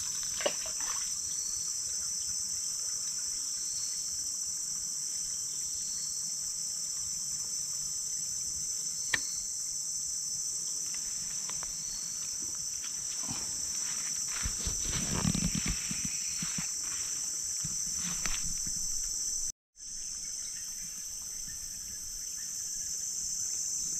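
A steady, high-pitched drone of insects throughout, with a faint short chirp repeating about every two seconds early on. Dry leaves rustle underfoot and a rod is handled for a few seconds past the middle, there are a couple of sharp clicks, and the drone cuts out for an instant near the end.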